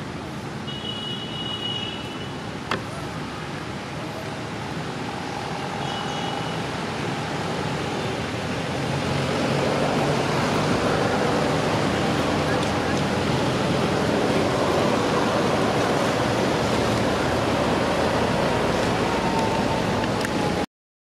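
Steady outdoor background noise like distant road traffic, with indistinct voices mixed in, growing louder about nine seconds in. Short high chirps about one and six seconds in, and a single sharp click near three seconds; the sound cuts off suddenly near the end.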